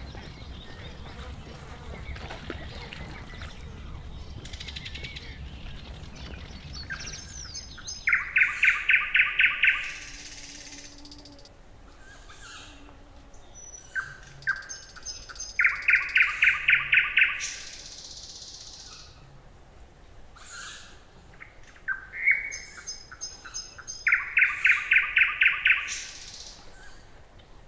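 A songbird singing a short phrase three times, about eight seconds apart. Each phrase is a few thin high notes followed by a loud, rapid run of evenly repeated notes, with fainter bird calls in between.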